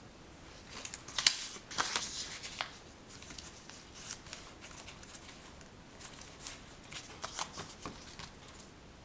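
Paper rustling and crinkling as hands handle and fold a small piece of paper on a tabletop. It comes in short crisp bursts about a second in and again later on, with a quieter stretch between.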